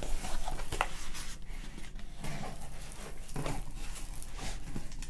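Hands handling a cardboard shipping box and the paper packing slip inside it: irregular rustles, scrapes and light knocks.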